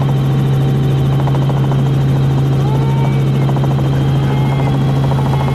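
Helicopter running: a loud, steady, low drone that does not change.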